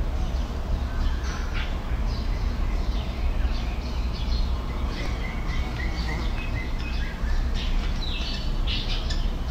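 High, short chirping calls over a steady low rumble: scattered chirps, a run of about half a dozen short repeated notes midway, and a falling squeak near the end.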